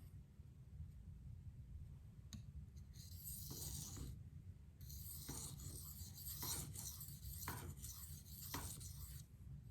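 Steel knife edge stroked across a 400-grit Venev diamond waterstone. The scratchy, hissing sharpening strokes start about three seconds in and repeat for several seconds.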